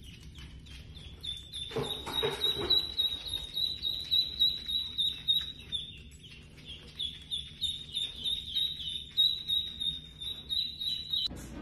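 A yellow duckling peeping: a steady run of short, high peeps, about three or four a second. There is a brief lower sound about two seconds in.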